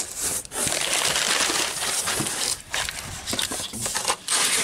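Crumpled brown kraft packing paper crinkling and rustling in handfuls as it is pulled out of a cardboard shipping box, with short pauses between grabs.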